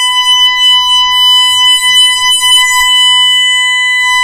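Home security system's indoor siren sounding a burglary alarm for the tripped front-door zone: one loud, steady, high-pitched tone without a break.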